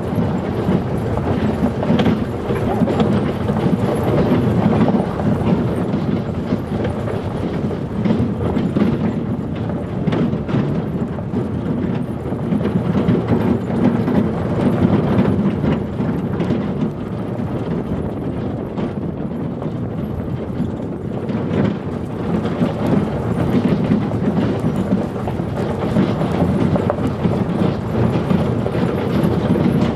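A sled-dog team pulling a wheeled cart over a gravel road: a steady rumble and crunch of wheels on gravel, with rattling from the rig and the quick patter of the dogs' feet.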